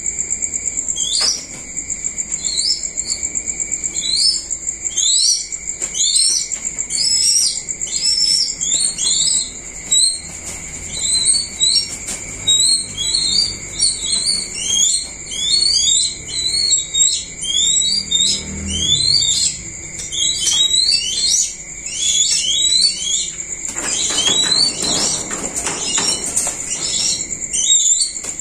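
Crickets trill steadily at a high pitch under a constant run of short, sharp, high-pitched bird chirps, several a second. A rustling noise comes near the end.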